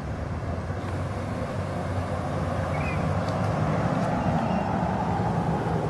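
A motor vehicle's engine and road noise, a low rumble that grows louder over the first few seconds and then holds steady.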